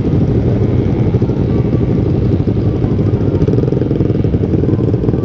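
Several motorcycle engines idling together at a standstill, a steady low rumble with a rapid, uneven pulse.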